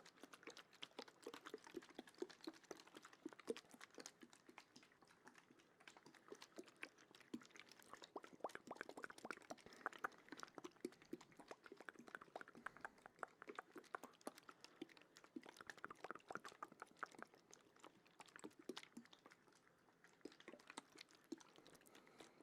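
Wet mouth sounds made close to the microphone: a soft, dense stream of quick clicks and smacks that hardly lets up.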